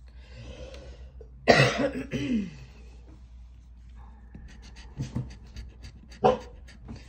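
A loud, short throaty burst with a brief pitched tail about a second and a half in. Later comes a run of quick scratching strokes as a pen-shaped scratcher rubs the coating off a scratch-off lottery ticket, and a second sharp burst near the end.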